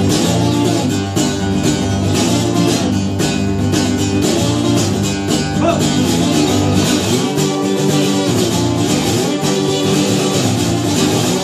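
Acoustic guitar strummed in a steady rhythm, an instrumental passage of the song.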